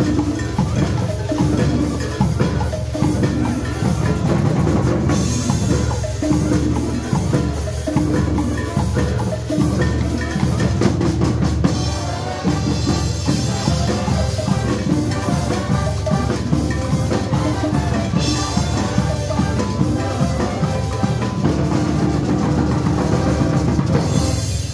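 Marching band playing: brass, sousaphone and a drum line with bass drum and snare, stopping just before the end.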